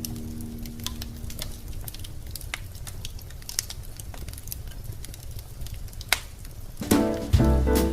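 Wood fire crackling in a fireplace: irregular sharp pops and snaps over a low steady rumble. Music comes back in near the end.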